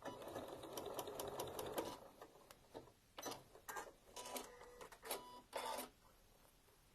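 Domestic sewing machine running for about two seconds as it backstitches in reverse to lock the end of the seam, then stopping. A few short clicks and brief handling sounds follow.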